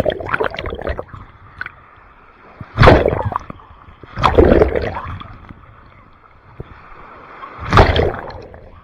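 Ocean waves surging and splashing in the surf: several loud washes a few seconds apart, each fading away after about a second.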